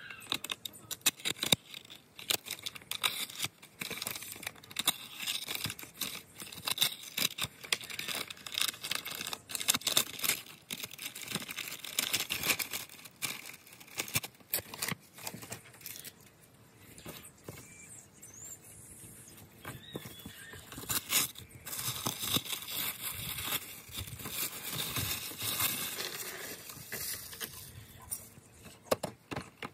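Packaging being opened by hand: rustling, crinkling and tearing, with many small clicks and knocks at an uneven pace.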